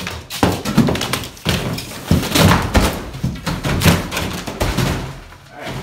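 Drywall being smashed and torn off wooden wall studs: a rapid, irregular run of thuds, cracks and crashes as slabs of gypsum board break and fall.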